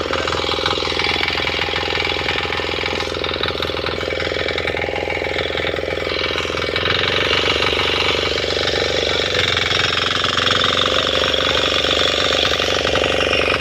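Single-cylinder 6 hp diesel engine of a power weeder running steadily under load while cultivating between chilli rows, a rapid chugging. Its note shifts slightly about seven seconds in.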